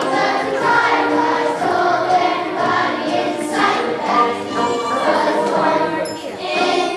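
A song with a choir singing over musical accompaniment.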